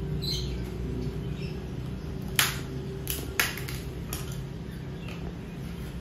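Two sharp knocks about a second apart over a steady low hum, with a few faint bird chirps near the start.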